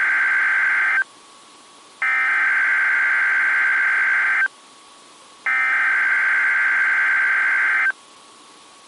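NOAA Weather Radio EAS/SAME header: the same digital data-tone burst sent three times, each about two and a half seconds long with about a second's pause between, the last ending about eight seconds in. It marks the start of an emergency alert broadcast.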